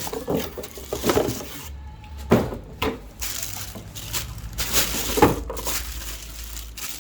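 Irregular knocks, clicks and rustling as plastic mailing-machine parts and their packaging are handled and set in place, with two louder knocks about two and a half and five seconds in.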